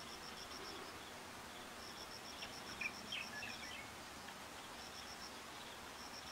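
Faint outdoor ambience: a high, rapid chirping in runs of one to two seconds, about eight pulses a second, with a few short bird chirps around the middle.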